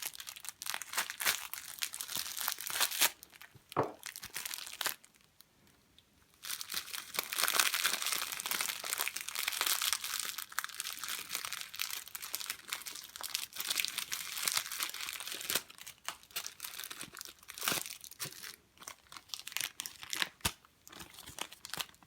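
Packaging crinkling and tearing as it is pulled open by hand, in uneven stretches with a short quiet gap about five seconds in and a few sharp clicks near the end.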